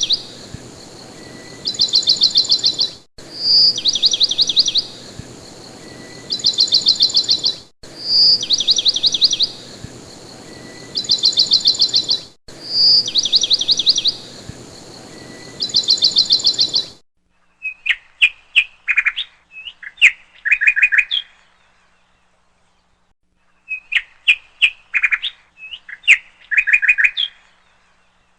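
Birds chirping. For the first two-thirds, the same phrase repeats about every four and a half seconds over a steady hiss: a short high whistle, then a fast trill. About two-thirds of the way in, it switches to bursts of short, lower chirps, with silence between the bursts.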